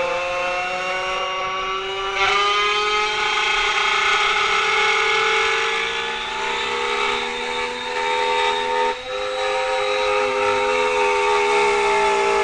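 Stepper motors of a small CNC machine whining with a steady pitched tone that drifts slowly up and down as the axis speeds change, with a brief dip about nine seconds in.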